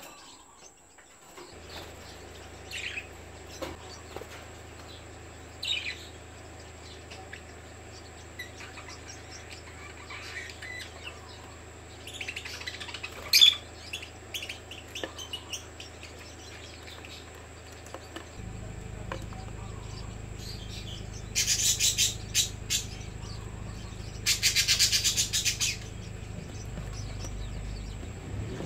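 Yellow lovebirds making scattered short high chirps, with two louder bursts of rapid, rattling calls a couple of seconds apart about three-quarters of the way through. A steady low hum runs underneath and gets louder partway.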